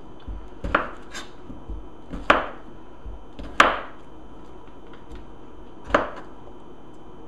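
Chef's knife chopping a microwaved potato into chunks on a cutting board: about five sharp knocks of the blade against the board, unevenly spaced, the last about six seconds in.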